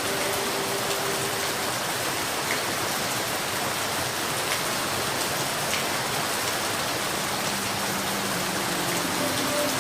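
Steady rainfall: an even, continuous hiss with a few single drops ticking through it.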